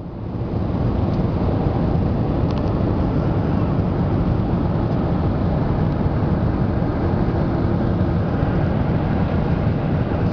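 Steady cabin noise of an Airbus A320-200 airliner in flight, heard from a window seat: a low, even rumble of engines and airflow. It fades in over the first second, then holds steady.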